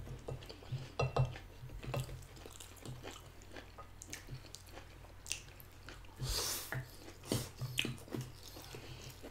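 Close-up sounds of two people eating spaghetti in tomato sauce: soft chewing and slurping of noodles, with many small scattered clicks and a longer hissy slurp about six and a half seconds in.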